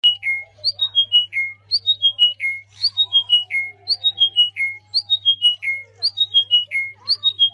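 A songbird singing: a short phrase of about five clear whistled notes stepping down in pitch, repeated about once a second, over a faint steady low hum.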